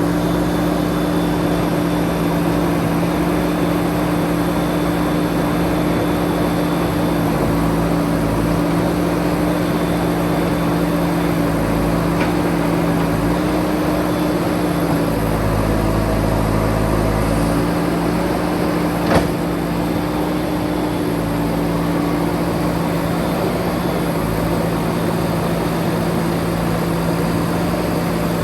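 JCB 3DX backhoe loader's diesel engine running steadily. Its low rumble deepens for a couple of seconds past the middle, and one sharp knock comes a few seconds later.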